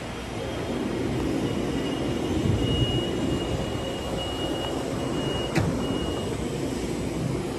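Metro-North M8 railcar doors closing at a station stop: a steady high-pitched warning tone sounds for several seconds from about a second and a half in, and the doors shut with a thump about five and a half seconds in. Under it runs the low rumble of the stopped electric train.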